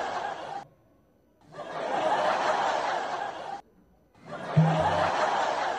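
Canned audience laughter laid on in bursts of about two seconds, each cut off sharply, with short silent gaps between them.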